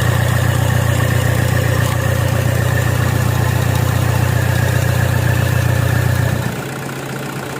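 Toyota Fortuner's diesel engine idling steadily, running again after one of its injectors was taken out and refitted to chase a hard-starting fault. About six and a half seconds in, the sound drops noticeably in level and becomes lighter.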